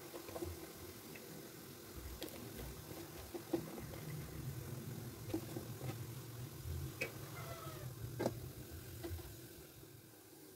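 Scattered sharp clicks and knocks over a faint low rumble, with a short falling cat meow about seven seconds in.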